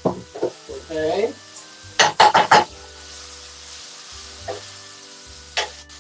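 A metal utensil stirring and knocking against a frying pan of sizzling broccoli and green beans. A quick run of four sharp clanks comes about two seconds in, with single knocks before and near the end.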